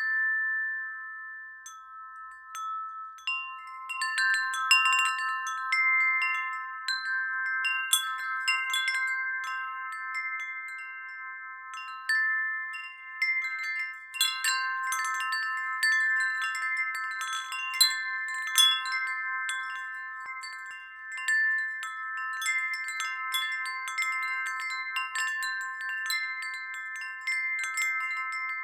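A wind chime ringing: irregular strikes of a handful of fixed pitches that overlap and ring on, with busier clusters of strikes at times.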